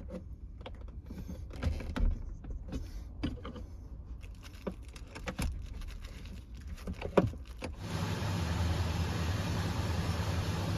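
Keys jangling with small clicks and knocks, then about eight seconds in the 1979 Chevrolet Corvette's 350 V8 starts and settles into a steady idle.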